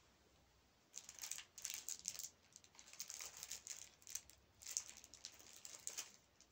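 A small clear plastic zip bag crinkling as it is handled, in short irregular bursts starting about a second in.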